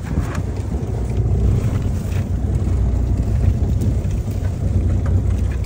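Steady low rumble of wind buffeting the microphone on an open boat deck, with a few faint clicks.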